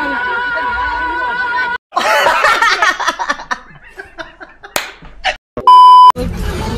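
Edited-in meme sound effects: music cuts off about two seconds in, then a man's loud laughter clip, a few sharp smacks, and near the end a loud, steady test-tone beep of about half a second, the kind that goes with TV colour bars.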